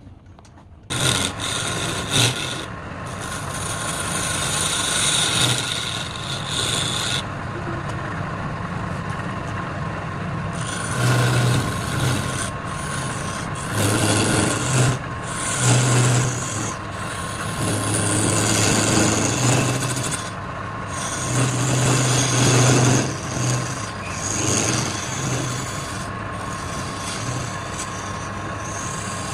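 Wood lathe running, with a tool scraping against the spinning wood. It starts about a second in and goes on continuously, swelling and easing as the contact changes, over the lathe's steady motor hum.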